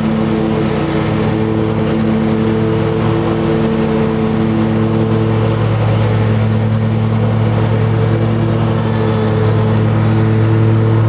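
Engine of a ride-on machine running steadily at constant speed close to the microphone, a steady low hum with no change in pitch.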